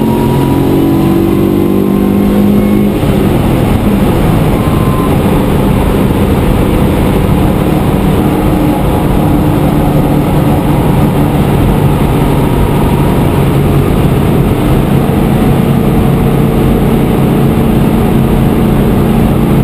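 BMW E28's S62 4.9-litre V8 heard from inside the cabin at motorway speed. Its note rises for the first few seconds, then holds steady at cruising revs, with road and wind noise underneath.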